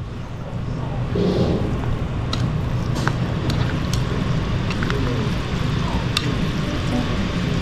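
Steady low rumble of room noise, with scattered sharp clicks of chopsticks against plastic bowls as noodles are mixed.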